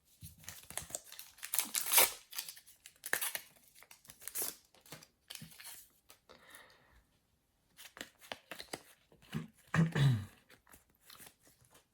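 Foil trading-card packet being torn open and crinkled, with the cards inside handled: a series of short, irregular tearing and rustling sounds.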